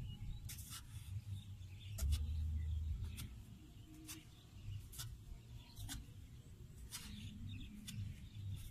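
A long-handled hoe chopping into clay soil: sharp, irregular knocks, roughly one a second.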